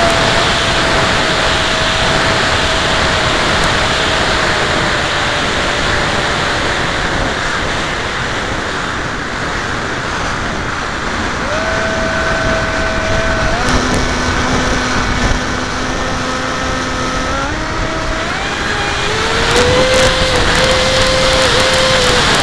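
Onboard recording of a Funjet RC jet's electric pusher motor and propeller whining under a loud rush of air. The whine drifts down slowly, then jumps up and down in pitch several times as the throttle changes.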